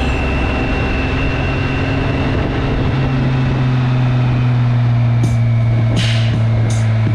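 Motorcycle engine running steadily while riding at an even pace, its pitch holding level.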